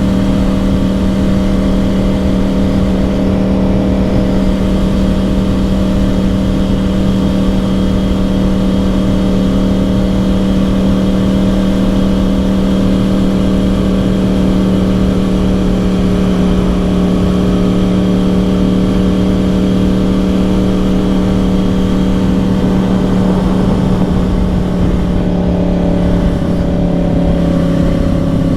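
2010 Yamaha R1's crossplane inline-four with dual Yoshimura exhausts, running at a steady cruise with an even engine note. The pitch dips slightly and settles a few seconds before the end. Wind rush runs under it.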